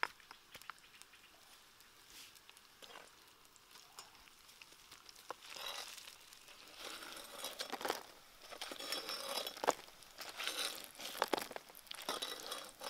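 Fried insects being scraped out of an oily wok with a knife blade and dropped onto a banana leaf in a woven basket. After a few light taps, rustling, crackling scrapes come in repeated bursts, with faint oil sizzle under them.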